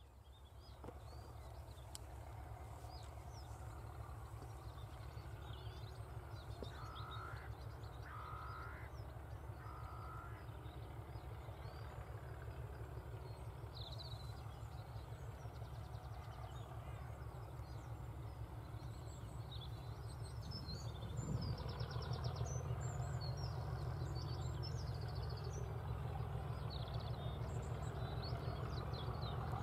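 Diesel locomotive engine running out of sight, a low steady rumble that grows louder as it approaches and steps up about two-thirds of the way in, with small birds chirping over it.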